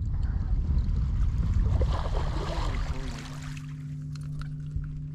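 Water splashing and sloshing at the boat for about three seconds, then a steady low hum.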